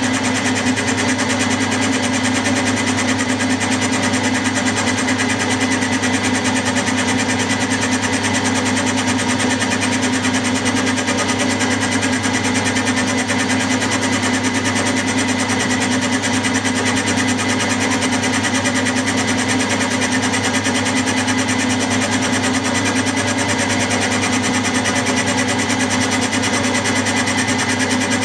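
Milling machine running steadily, its 60-degree dovetail cutter milling the bedway of a model lathe bed under a slow feed: an even motor and spindle whine with a steady cutting noise.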